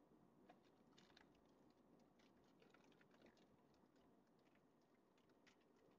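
Near silence: a faint low hum with scattered, irregular faint clicks.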